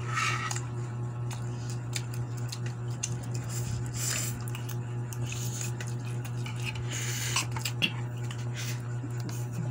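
Fork and spoons clinking and scraping against a bowl and a plate while noodles and rice are eaten, with a few brief slurps of noodles. A steady low hum runs underneath.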